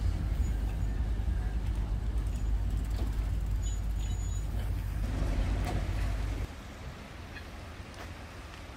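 Historic 1913 MAN tram motor car and its trailer rolling past on the track, with a few sharp clicks. A heavy low rumble cuts off abruptly about six and a half seconds in, leaving a softer rolling noise as the tram moves away.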